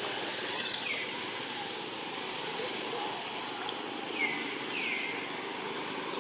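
Steady outdoor background noise with a few short, high, falling calls: one near the start and two close together about four to five seconds in.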